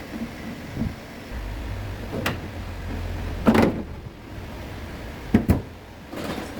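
A low hum for about two seconds, then a series of sharp knocks and clicks; the loudest comes about halfway through, and two follow close together near the end.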